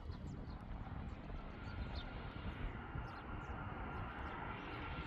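Boeing 757 airliner's twin jet engines running up on the runway for takeoff. A low rumble grows steadily louder, and a steady whine joins it about a second in.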